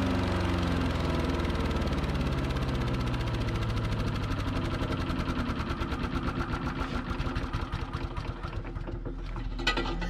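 Wood chipper's small gasoline engine running and slowing down, its firing beats growing more widely spaced and separately audible toward the end: the engine bogging down.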